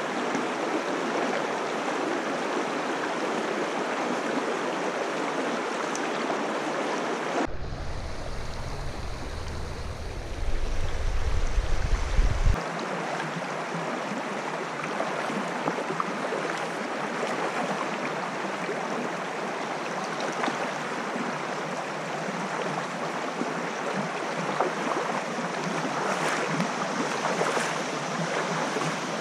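Shallow stream water running over rocks, a steady rushing hiss close to the microphone. About seven seconds in, the hiss is muffled for around five seconds by a loud low rumble.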